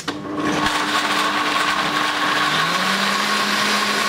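Countertop blender switched on with a click and running steadily, puréeing vegetable soup in a glass jug; the motor's low hum shifts pitch about two and a half seconds in.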